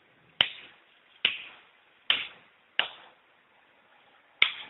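Five sharp finger snaps, unevenly spaced, each dying away quickly, made to trigger the clap sensor of a sound-activated rotating LED disco bulb.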